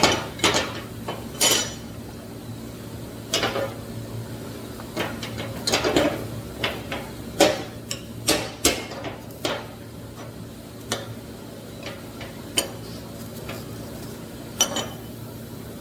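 Irregular metallic clinks and knocks as freshly welded aluminum pieces are handled and set down on a work surface, over a steady low hum.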